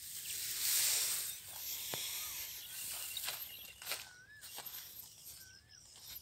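Dry grass and rice stubble rustling and crunching underfoot as someone walks through it, with a loud brushing hiss about a second in and many small crackles. A few faint short chirps sound in the background.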